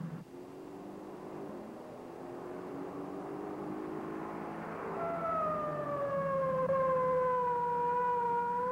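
A car engine hum, joined about five seconds in by a loud police siren whose pitch sinks a little and then holds steady: a state trooper's car giving chase.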